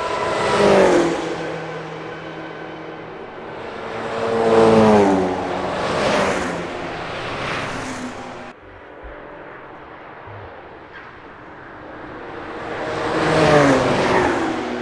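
About five cars passing at speed one after another, each engine note swelling and then falling in pitch as it goes by. The sound cuts off abruptly about eight and a half seconds in, and another car approaches and passes near the end.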